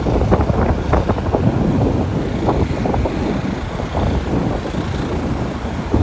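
Wind buffeting the microphone in irregular gusts over a steady low rush of sea and boat noise, as a fishing boat pushes through waves.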